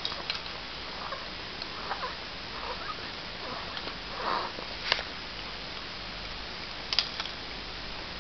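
Faint handling of plastic baby toys: a few small clicks as the hanging rings are grabbed, and a soft breathy sniff about four seconds in, over low room hiss.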